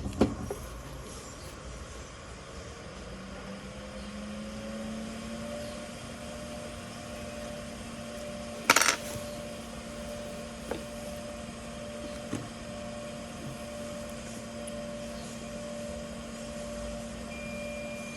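A steady hum that rises in pitch over a couple of seconds and then holds, with one sharp click about halfway through, two fainter clicks after it, and a thin high steady tone starting near the end.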